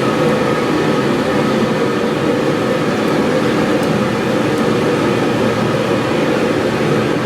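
A forge running: a steady, even rushing noise with a faint hum in it.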